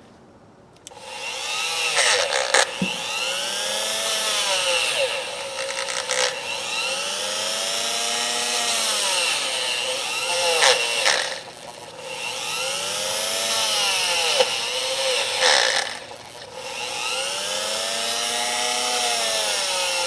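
A small electric power tool starts about a second in and runs with a steady whine. Its pitch repeatedly sags and recovers as it works, and it eases off briefly twice.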